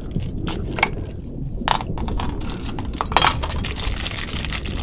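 A hard plastic capsule being twisted and handled with a few sharp clicks and knocks, then a clear plastic bag of small puzzle pieces crinkling in the hands in the last second or so.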